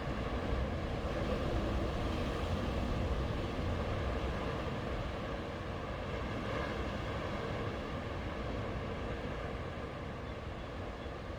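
Ocean surf washing onto a beach: a steady rush of waves, a little louder in the first few seconds and easing off after.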